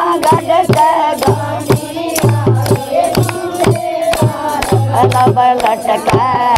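Devotional folk song (bhajan) with a steady beat: hands clap about three times a second, and a sung line returns near the end.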